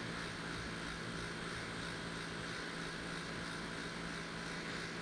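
Steady outdoor background hum and hiss with a constant low tone and no distinct events, of the kind a distant engine makes.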